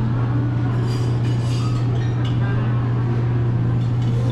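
Restaurant background: a steady low hum with faint clinks of dishes and cutlery.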